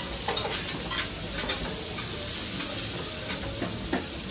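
Steady sizzling of wagyu beef frying on a grill, with a few short clicks and clinks of utensils.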